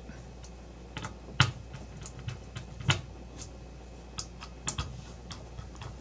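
Small screwdriver turning the mounting screws on the back of a graphics card, giving a scattering of sharp, irregular clicks and ticks as the tip works in the screw heads.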